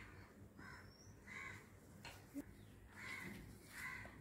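Faint bird calls: four short calls in two pairs, the calls of each pair a little under a second apart. A small click comes about two seconds in.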